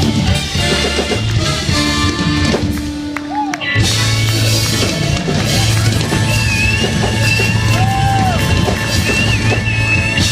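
Live band playing loud music, with a short break about three and a half seconds in before the full band comes back in.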